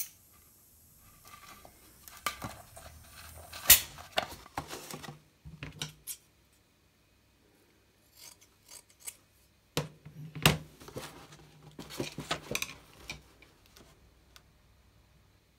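Scissors cutting through a pad of steel wool: two runs of crisp snips and rustling with a short pause between them.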